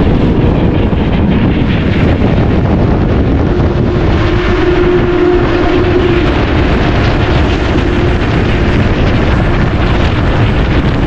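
Steady rush of wind and road noise from a bus moving at highway speed, heard at an open window, with wind buffeting the microphone. A faint steady tone runs underneath for a few seconds in the middle.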